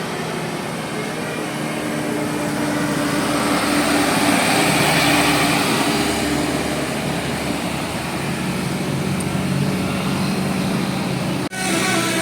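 A large diesel bus passing on the road: a steady engine hum with tyre and traffic noise that swells about four to five seconds in, then eases. Near the end the sound cuts abruptly to the start of a bus's multi-tone musical telolet horn.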